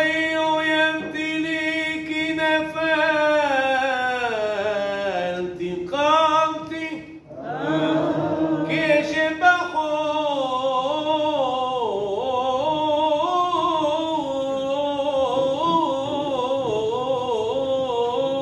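A male cantor singing solo and unaccompanied in the ornate style of hazzanut, drawing out long, winding notes with vibrato, with a short breath about seven seconds in.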